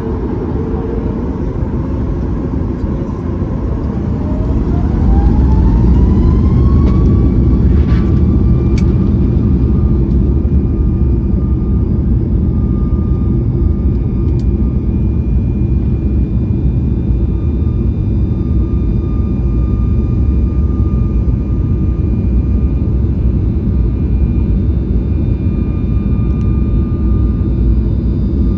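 Boeing 737 MAX 8's CFM LEAP-1B turbofan engines spooling up to full takeoff thrust. A rising whine climbs over a few seconds, about four seconds in, and the sound grows louder. It then settles into a loud, steady engine sound with a deep rumble through the takeoff.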